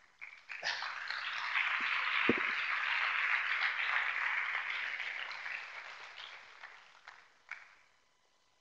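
Audience applauding: the clapping starts about half a second in, swells, then dies away over several seconds, with a last few claps near the end.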